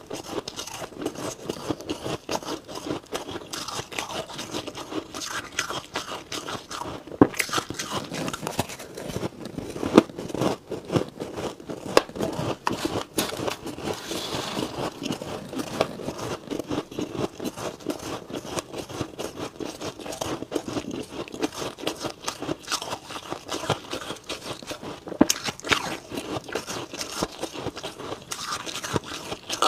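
Powdery frost crunching under a metal spoon as it scrapes and scoops through a box of frost, with crisp bites and chewing of frost mouthfuls; dense, irregular crackles with occasional sharper crunches.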